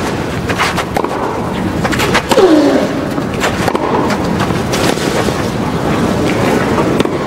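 Tennis rally on a grass court: racquets striking the ball with sharp cracks back and forth, and one short player's grunt falling in pitch on a shot about two seconds in, over the steady murmur of a stadium crowd.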